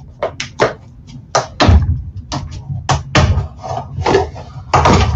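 An irregular run of clicks, taps and dull knocks, more than a dozen, as a container of baking soda and a small coffee spoon are handled.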